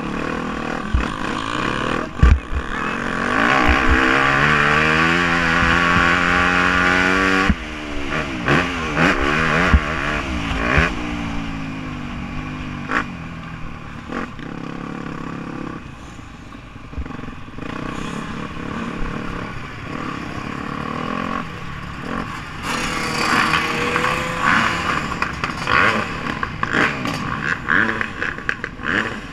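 Yamaha YZ250F motocross bike's four-stroke single-cylinder engine heard on board, revving up in a long rising pull a few seconds in and cutting off sharply about seven seconds in. It then runs at lower, uneven revs with rattling and wind noise as the bike slows.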